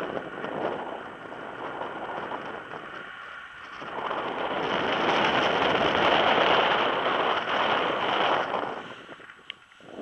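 Wind rushing over the microphone of a tandem paraglider on final approach, swelling about four seconds in and dying away near the end as the glider touches down on grass.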